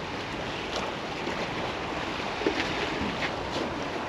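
Steady rush of choppy estuary water washing against the bank on a big high tide, mixed with wind on the microphone.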